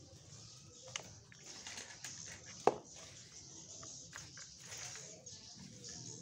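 Dry bamboo leaves and potting mix rustling and crackling as they are scooped and handled by hand, with one sharp knock a little before halfway.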